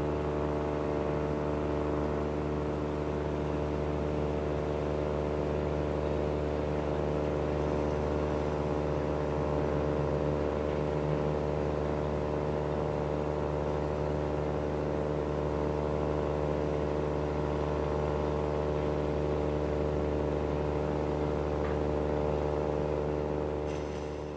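Steady engine drone holding one low pitch throughout, fading out near the end.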